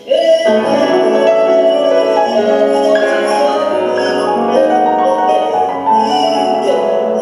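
Grand piano and percussion playing live instrumental music, coming in loudly at the start with dense, ringing chords that have a bell- or mallet-like tone, and light high ticks over them.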